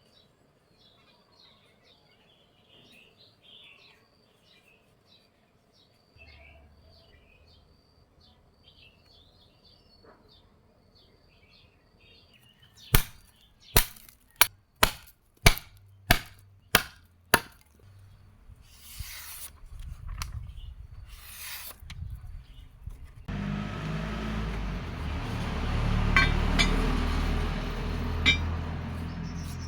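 Birds chirping faintly, then about eight sharp hammer blows on steel, roughly two a second, each with a short ring. Near the end a loud steady rushing noise with a low hum sets in.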